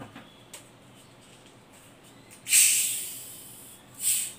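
Cap of a plastic cola bottle being twisted open, the carbonation gas hissing out in a loud burst that fades over about a second, then a second short hiss near the end. A few faint clicks near the start.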